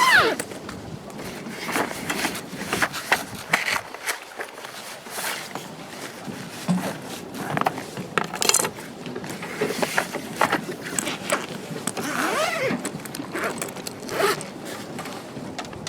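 Irregular short scraping rasps and clicks, zipper-like, repeated throughout.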